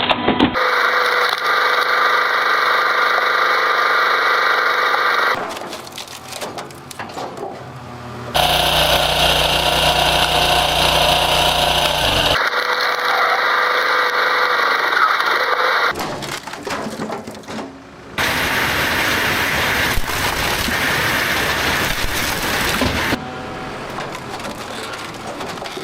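Heavy machinery running steadily, in short clips cut together abruptly, with wood cracking and splintering in the quieter stretches.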